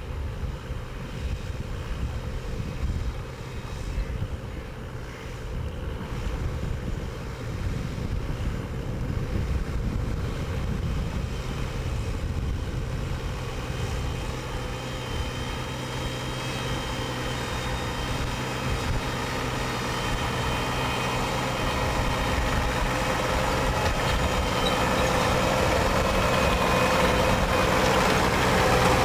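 New Holland T7.260 tractor's six-cylinder diesel engine running under load while ploughing, its steady note growing gradually louder.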